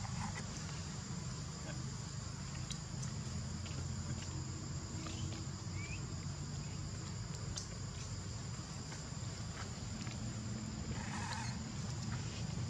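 Insects droning steadily at a high pitch over a low steady hum, with a few faint clicks and a short call about eleven seconds in.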